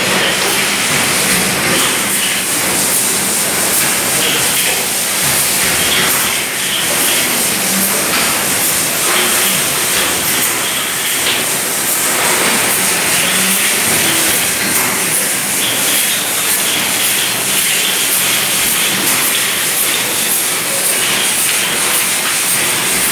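Mineral water bottling line running: a steady machine hiss with a faint mechanical clatter under it.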